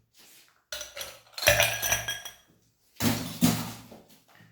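Ice cubes dropping into a highball glass and clinking against it, in three bursts about a second apart, the glass ringing briefly after each.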